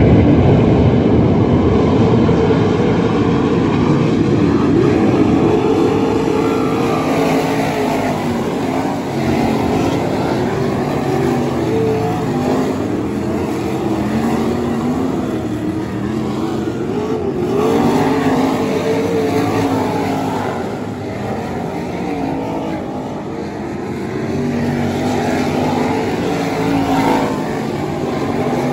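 Several winged 360 sprint cars running together on a dirt oval, their V8 engines loud at once. The pitch keeps rising and falling as the cars pass and work through the turns.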